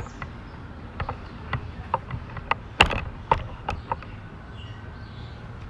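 A run of about a dozen sharp clicks and knocks over three seconds, the loudest a little under three seconds in, against a steady low outdoor background.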